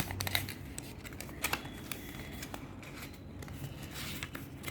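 A sheet of craft paper being handled and folded into a paper boat, crinkling and crackling in short sharp clicks, most of them in the first half second and a couple of louder ones about a second and a half in.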